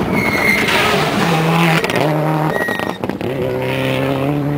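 Rally car at full throttle on a gravel stage, passing close by: the engine's pitch climbs and drops back several times as it shifts up through the gears, with a brief dip about three seconds in before it pulls hard again, and gravel noise from the tyres.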